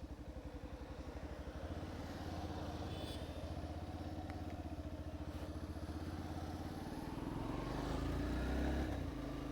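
Motorcycle engine running with an even pulsing exhaust beat, growing a little louder about two seconds in and again near the end as the bike moves off.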